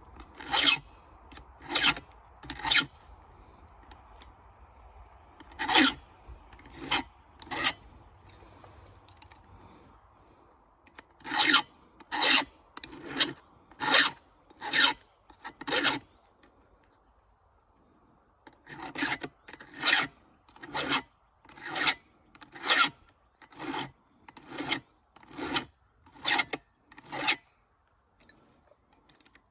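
Hand file rasping across chainsaw chain teeth, one push stroke about every second, in runs of a few strokes with short pauses between them as it moves from tooth to tooth.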